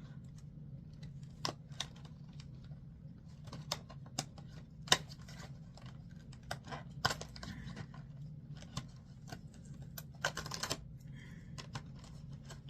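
Scattered clicks and taps of hands handling a cardboard advent calendar and a small packaged item, with a brief denser rustle about ten seconds in, over a low steady hum.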